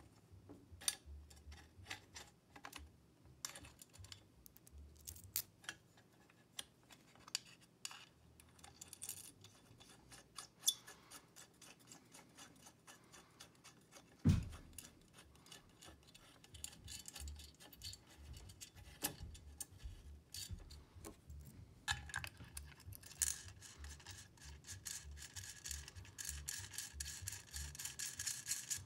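Small steel bolts, lock washers and nuts clicking and tapping against a metal mounting bracket as they are fitted by hand, with one louder knock about halfway through. Near the end there is a steadier scraping, metal on metal, as the hardware is worked into place.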